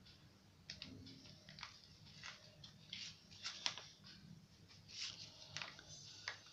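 Faint scattered clicks and scrapes of a spoon and container being handled, over a faint steady low hum.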